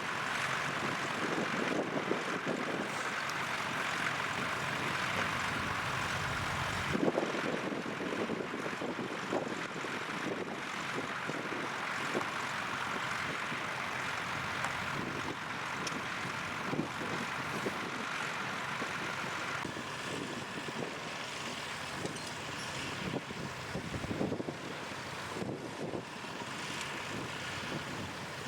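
Tractor engine running steadily. The sound changes abruptly about seven seconds in and again near twenty seconds.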